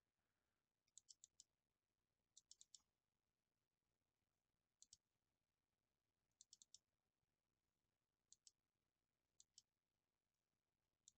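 Faint clicks of a computer mouse, in quick runs of two to four clicks about every one to two seconds, with near silence between them.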